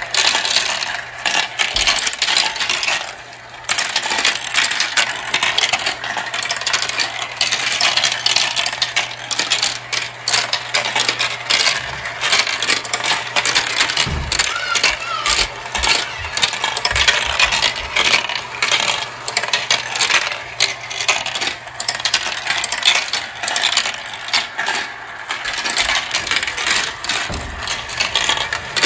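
Glass marbles clattering and rolling through a plastic marble run, with a dense stream of rapid clicks as they hit the tracks, funnels and motorized elevator. A low steady hum sits underneath and stops about halfway through.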